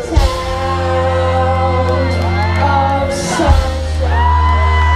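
Live band music played loud in a concert hall, with a heavy steady bass and long held sung notes, and the crowd shouting and whooping.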